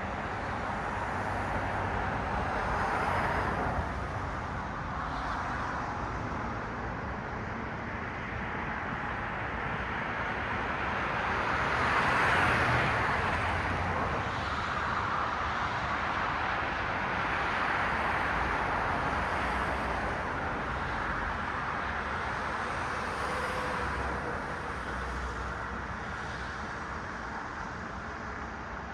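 Road traffic: a steady hiss of tyres on the road with cars passing one after another, the loudest pass about twelve seconds in.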